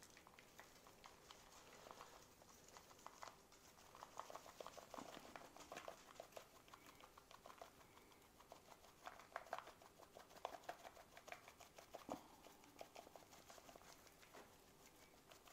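Faint, scattered patter and light clicks of seasoning being shaken onto bacon-wrapped stuffed manicotti shells on a plastic tray, with a fork working over them. The clicks come thicker a few times, then thin out.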